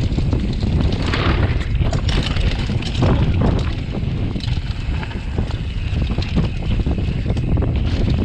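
Wind buffeting the camera microphone as a mountain bike rolls fast down a dirt trail covered in dry leaves, with tyre noise on the dirt and leaves and the bike clattering over bumps in many short knocks.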